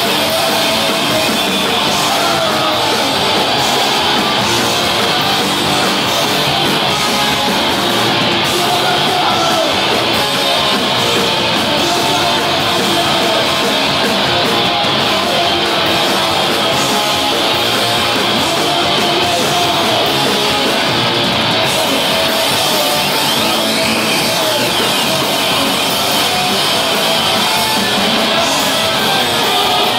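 A live rock band playing loud, distorted music without a break: electric guitar, drums and shouted vocals.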